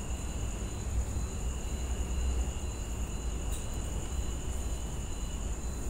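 Steady background noise: a low rumble under a constant high-pitched whine, with a faint tone pulsing a few times a second above it.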